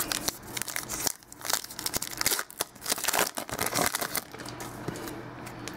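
A Topps Archives football card pack's wrapper being torn open and crinkled, with the cards rustling as they are handled. It is a quick run of crackles and snaps, busiest in the first half, easing to softer rustling near the end.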